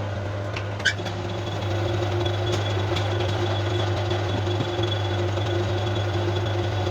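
A machine running steadily with a low, even hum and a faint high whine, switched on just before; a sharp click about a second in.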